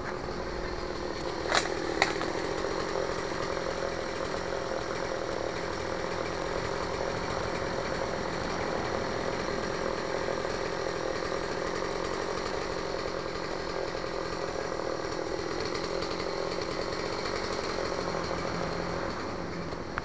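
Petrol chainsaw running steadily with its howl, heard from a worker felling trees. Two sharp clicks sound about a second and a half in.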